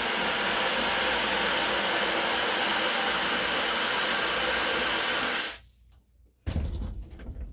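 Water rushing steadily through a mud-fouled condenser water line of a water-source heat pump being flushed, cut off suddenly about five and a half seconds in. Low rumbling follows near the end.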